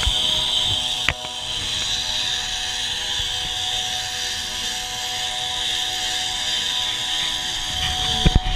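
Zip-line trolley running along the steel cable, a steady high whirring hiss. A sharp click about a second in and a few thumps near the end.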